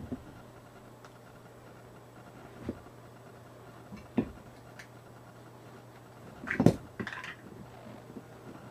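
Ratchet tie-down strap being handled: scattered knocks and clatters of the metal ratchet buckle and the webbing against the tire and floor, the loudest clatter and rustle a little past the middle.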